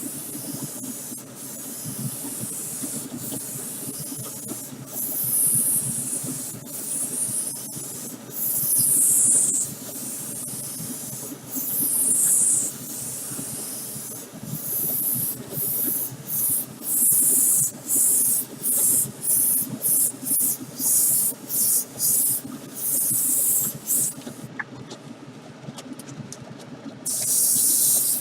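Paint spraying onto a model car body in bursts of hiss to touch up a missed spot: a few longer bursts early on, then many short ones in quick succession, with a pause of a couple of seconds near the end. A steady low hum runs underneath.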